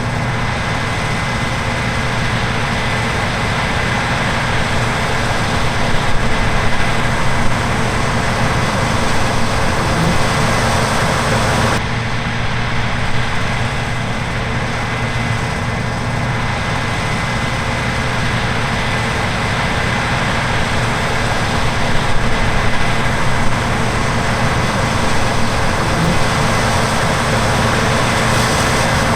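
Heavy harvest machinery running steadily: big diesel engines with the constant hum and whine of the machines working the barley field.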